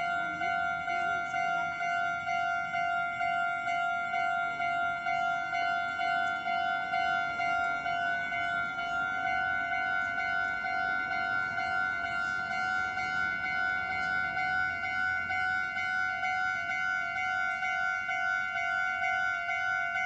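Japanese level-crossing alarm ringing its repeated electronic bell tone, about two rings a second, warning that a train is approaching with the barriers down.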